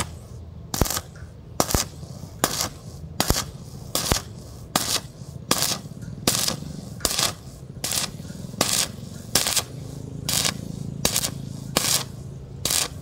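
Stick welding arc on thin-walled square steel tubing, crackling in sharp, evenly spaced bursts about every 0.8 seconds over a steady low hum.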